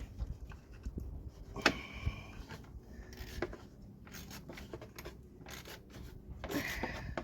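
Hand tool snugging a fastener into plastic radiator mounting: scattered clicks and scraping, with one sharp click about a second and a half in.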